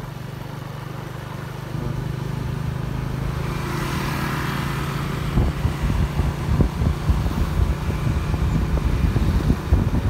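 Motorbike engine running steadily while riding, getting a little louder about two seconds in. From about halfway, wind buffets the microphone in irregular gusts.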